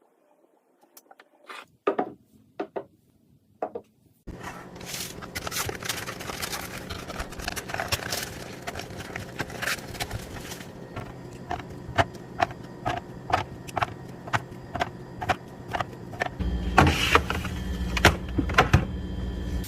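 Restocking handling sounds: a few sharp clicks, then a long run of taps, clinks and knocks from packages and containers being set down and arranged. Behind them is a steady hum, which gets louder near the end.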